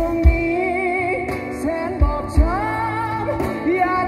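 Live band music: strummed acoustic guitars and a drum kit with kick-drum beats, under a sung melody line with long held notes.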